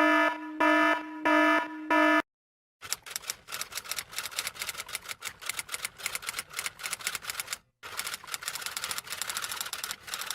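Four short electronic beeps, then a long run of rapid, irregular key clicks like typing, broken by a brief pause about three quarters of the way through.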